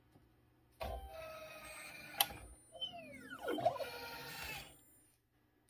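Automatic optical lens blocking machine at work: its motors whir as the blocking arm moves, with a sharp click about two seconds in. Falling whines come in the middle, then more whirring, which stops shortly before the end.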